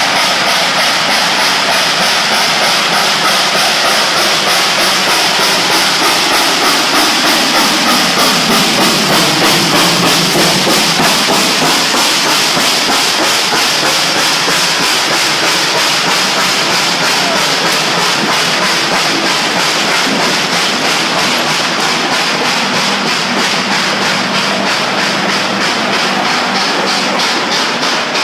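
Steam locomotive 425, a 4-6-2 Pacific, passing at close range: a loud, steady rush of exhaust and steam hiss with a rapid, even beat, and a low tone falling in pitch about eight seconds in as the engine goes by. The diesel and passenger coaches behind it then clatter past on the rails.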